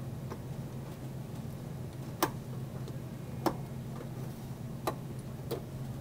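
Four sharp, separate clicks of a screwdriver and hands against a slim desktop computer's case as he works at its back to fasten it, over a steady low hum.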